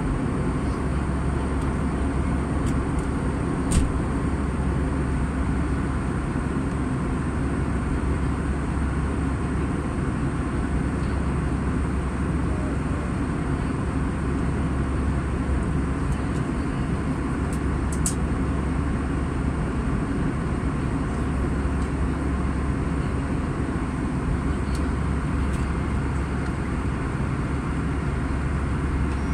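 Steady cabin noise of a jet airliner in cruise flight: an even, unbroken roar of engines and airflow, heaviest in the low end. A brief click about four seconds in, and a fainter one later.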